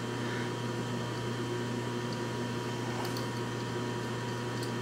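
Steady machine hum with a thin, constant high tone, and a few faint light ticks about three seconds in and near the end as a small screw is turned by hand into a freshly tapped hole.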